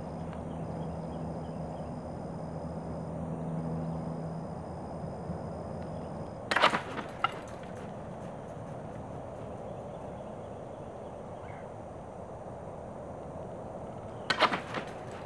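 Golf ball catapult firing twice, about eight seconds apart: each launch is a sharp thwack followed by a few quick knocks over about half a second, against a steady background hiss.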